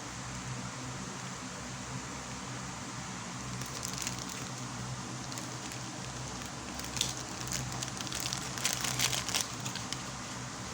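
Packaging being handled and crinkled, in short crackly bursts that are loudest near the end, over a steady background hum.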